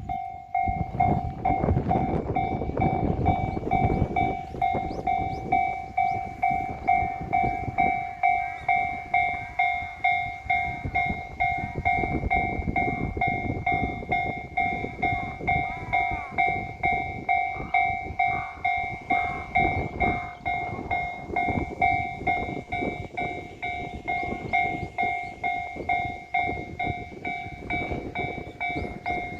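Japanese railway level-crossing alarm bell ringing, a steady two-tone ding repeated just under twice a second. A train passes over the crossing at the same time, its wheels rumbling and clacking on the rails in waves.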